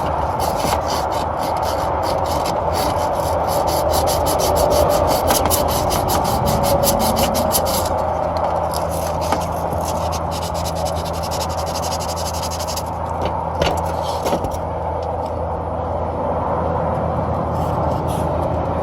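Copper refrigerant tubing being rubbed clean by hand, quick back-and-forth strokes for about eight seconds, then a pause and a few more strokes later, over a steady low hum.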